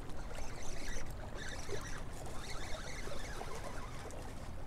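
A hooked walleye being reeled in on a spinning rod: reel winding and rod-handling noise, with water splashing against shoreline rocks over a steady hiss.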